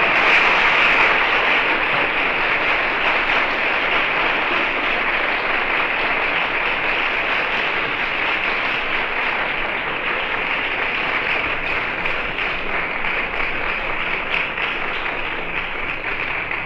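Audience applauding at the end of a live solo oud performance, loudest at the start and slowly dying down.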